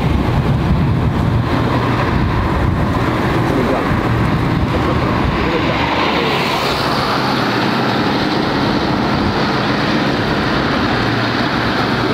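Jet noise from a Boeing 737-800's CFM56-7B turbofans as the airliner slows on its landing roll, a steady hiss and rumble mixed with wind on the microphone. About halfway through, the low rumble fades and a higher hiss comes up.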